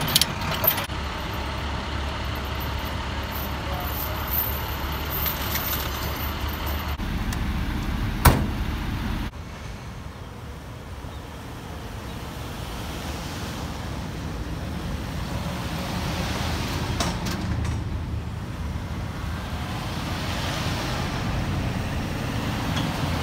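Work vehicles (Ford pickups, an SUV and a utility-body truck) pulling away one after another, engines running with tyre noise swelling as each passes. Before that, a steady low engine rumble, with chain rattling at the start and one sharp knock about eight seconds in.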